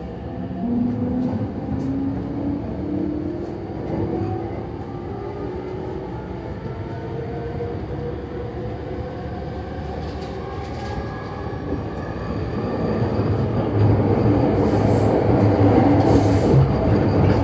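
JR East E231 series electric train car accelerating: the Mitsubishi IGBT inverter and traction motor whine climbs in pitch over the first several seconds, then the rumble of wheels on rail grows louder in the second half. Under power this car sounds like an ordinary E231; its abnormal gear noise comes only when braking.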